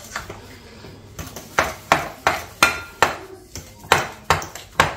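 A kitchen utensil knocking and scraping against a mixing bowl while stirring a stiff panellet dough of ground almond, sugar and potato: a string of sharp clacks about three a second, starting about a second in.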